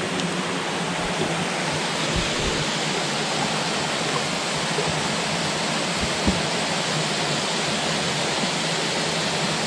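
Small waterfall rushing steadily into a pool, a constant even wash of water noise, with a few faint low bumps.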